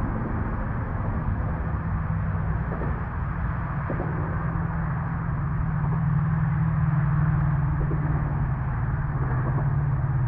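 Steady low engine drone from a distant vehicle, growing slightly louder about six seconds in.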